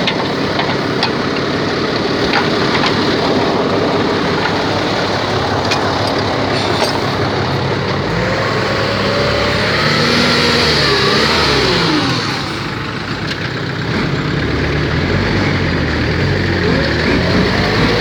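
BMC Pro 827 truck's diesel engine running under load in mud, revving so that its pitch rises and falls several times around the middle, easing briefly before picking up again. A few sharp knocks sound in the first few seconds.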